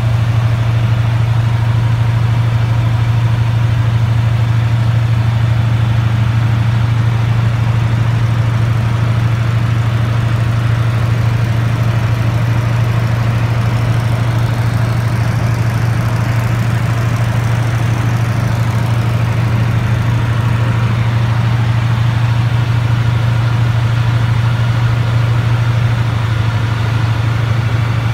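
Yak-12A light aircraft's nine-cylinder radial piston engine and propeller droning steadily in cruise, heard from inside the cockpit.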